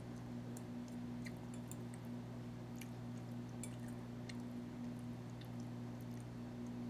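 Faint light clicks and scrapes of a metal fork scooping chopped salad from a ceramic bowl onto bread, scattered through a steady low hum.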